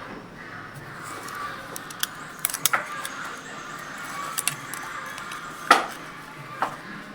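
Metal hand tools clinking and knocking against metal, a handful of separate sharp clinks over a faint steady background.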